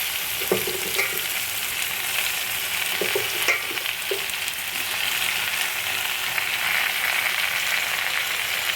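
Malabar spinach (pui shak) with potato and pumpkin sizzling steadily in hot oil in a kadai, stirred with a few short scrapes and knocks against the pan in the first half.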